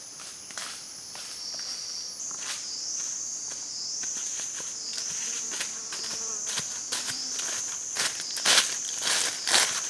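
A steady, high-pitched insect chorus drones and wavers, stepping up in pitch about two seconds in. Footsteps crunch through dry leaf litter, growing louder near the end.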